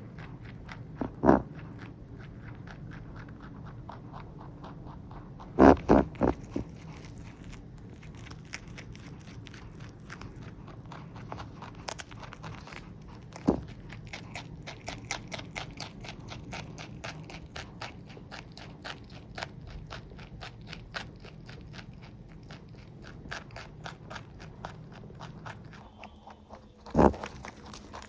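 A rabbit eating a treat from the hand, with a rapid run of crunching chews. A few louder short bursts stand out about a second in, around six seconds in, near the middle and near the end. The rabbit also snorts through his nose, which he does whenever he is hand-fed this favourite treat.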